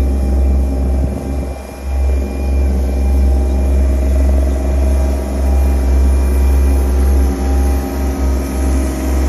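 Engine of a small ride-on tandem roller running steadily as it rolls over sand, under a strong, deep, continuous rumble.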